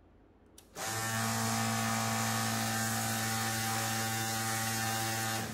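Electric booster pump switched on by radio, running with a steady buzzing hum under the hiss of misting nozzles spraying. It starts about a second in, just after a faint click, and cuts off suddenly near the end.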